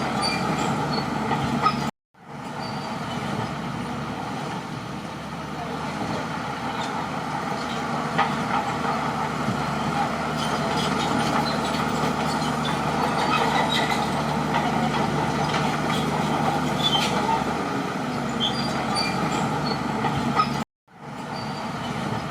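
Crawler bulldozer's diesel engine running steadily, with scattered clicks and short squeaks over it. The sound cuts out abruptly twice, about two seconds in and again near the end.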